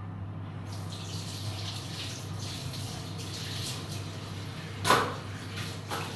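Kangkong and seafood simmering and sizzling under the closed lid of a stainless-steel electric cooker: a steady bubbling hiss that sets in about a second in. A sharp knock near the end is the loudest moment.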